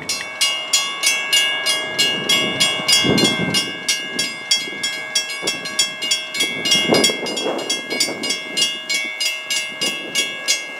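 Railroad grade-crossing warning bell ringing rapidly and evenly, about three strikes a second, as the crossing lights flash and the gate arm comes down. A low rushing noise swells briefly twice.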